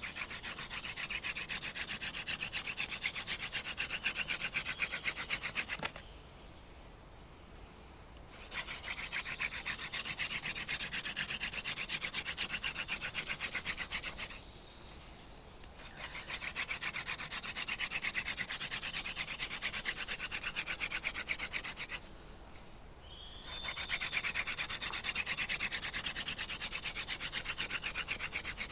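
Hand-drill friction fire: a wooden spindle spun fast between the palms grinds into a wooden hearth board. It goes in four bouts of rubbing about six seconds each, with short breaks between.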